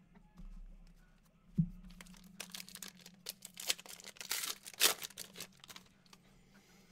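Foil wrapper of a trading card pack being torn open and crinkled: a dense run of crackling tears through the middle few seconds, after a single knock about a second and a half in.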